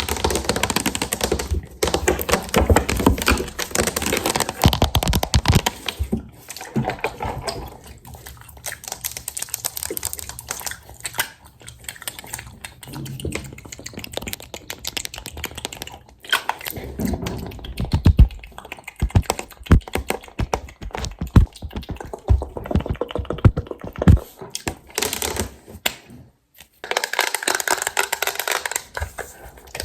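Close-miked ASMR sounds of makeup being handled: dense, irregular taps, clicks and rustles of cosmetic cases and brushes, with a steadier stretch of rustling near the end.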